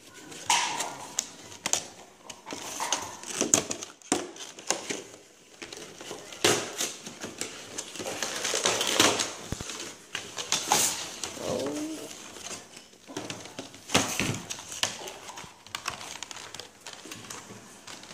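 Cardboard box and clear plastic tray of a trading-card collection box being handled and unpacked: irregular rustling, crinkling and light clicks and knocks.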